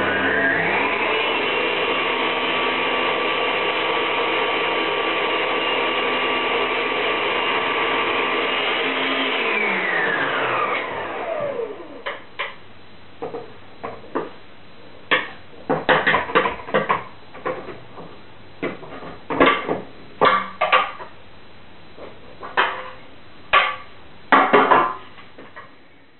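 Electric stand mixer running steadily with its balloon whisk beating batter, then switched off about ten seconds in and spinning down with a falling whine. After that come a series of sharp knocks and clatters as flour is tipped into the bowl from a metal tray.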